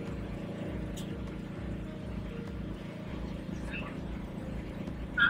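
Steady low machinery hum of food-trailer kitchen equipment, with a few faint clicks and a short high squeak just before the end.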